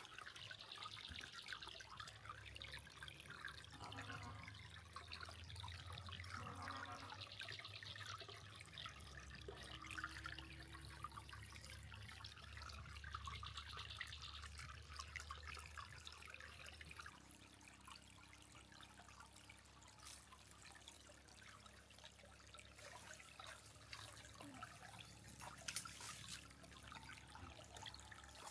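Faint steady trickling and running of a small seasonal river swollen with muddy rainwater. There is a low rumble underneath, and one sharp click near the end.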